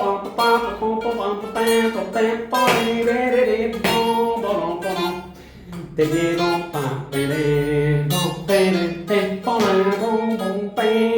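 Guitar playing a melodic phrase on a single string, notes plucked and some sliding in pitch, over a steady low note, giving the sound of a Bb7 chord. The playing dips briefly about halfway through.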